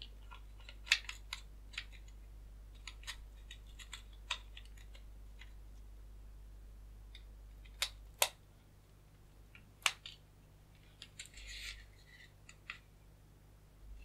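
Small plastic clicks and taps from handling an opened LED projector's wiring and connectors, with two sharp clicks about eight seconds in as a USB power plug is pushed into its socket, and another click near ten seconds.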